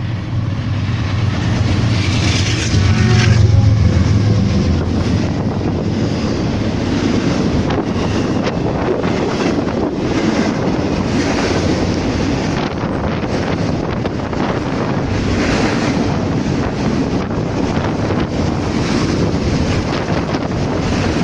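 A diesel freight locomotive runs close past with a deep engine rumble, loudest about three seconds in. The empty cars of the freight train then roll by in a steady rush of wheel noise, and the train's wind blasts the microphone.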